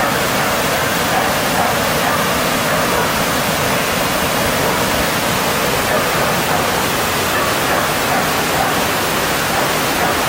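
Mountain stream rushing over rocks: a loud, steady rush of water.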